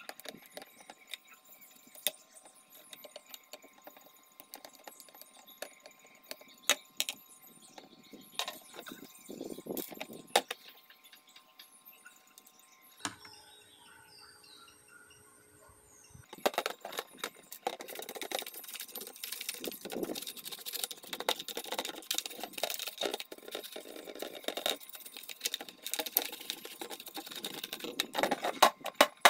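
Hands working on an electronic scale's plastic housing: scattered clicks and taps of a screwdriver and parts at first. From a little past halfway there is dense, continuous rubbing and scraping on the plastic.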